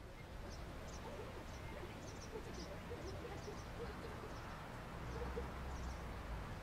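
Faint outdoor ambience: small birds chirping now and then over a low, steady rumble.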